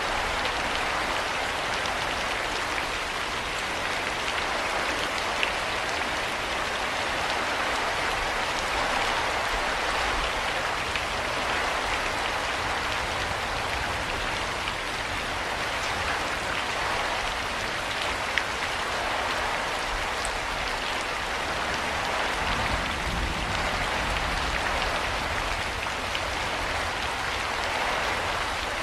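Steady heavy rain falling and pattering on surfaces, with scattered individual drop ticks and a faint low rumble beneath.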